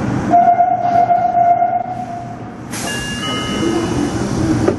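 Electronic signal tones in a subway train standing at a station platform. One steady beep-like tone lasts about two seconds, then a cluster of shorter, higher chime notes follows after a sudden hiss.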